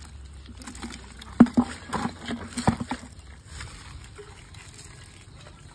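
Splashing in shallow muddy pond water: a quick run of splashes and slaps about a second and a half in, lasting about a second and a half, then only faint sloshing.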